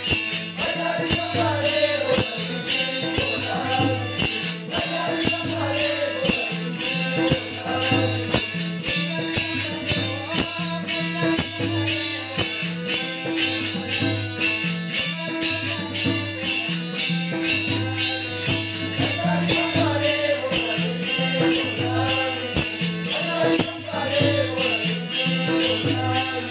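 Warkari bhajan music: small hand cymbals clash in a steady, fast rhythm over a drum beat and a steady held drone, with a faint singing voice.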